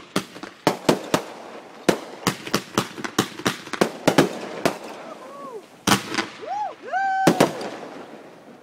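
Fireworks grand finale: a rapid barrage of firework explosions, two or three sharp bangs a second, thinning to a few last bangs after about five seconds.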